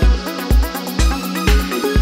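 Electronic dance music with a steady kick drum, about two beats a second, over a held bass note.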